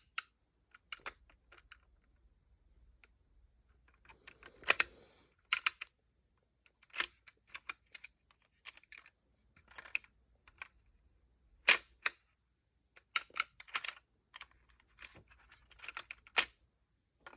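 Irregular sharp clicks and light plastic clatter, singly and in quick clusters, from a LEGO model being handled, with a brief rustle about four seconds in.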